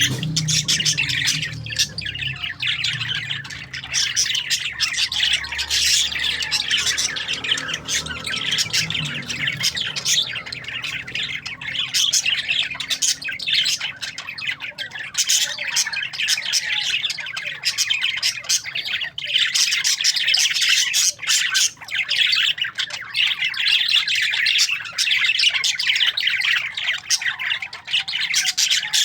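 A flock of parakeets chattering continuously: many overlapping chirps, squawks and warbles with no pause.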